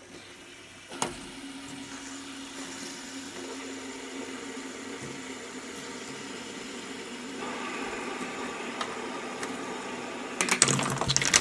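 Several fidget spinners whirring together at once, a steady hum that builds slightly over the seconds. A burst of loud clattering knocks comes near the end.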